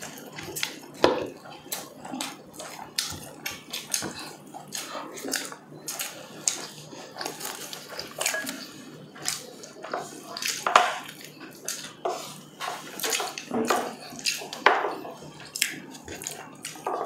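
Close-miked eating sounds: wet chewing, lip smacking and slurping of saucy braised pork leg and rice, irregular and frequent, with occasional clinks of a utensil on a plate.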